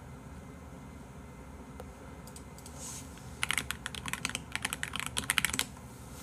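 Typing on a computer keyboard: a few single key clicks, then a fast run of keystrokes about halfway through that lasts roughly two seconds.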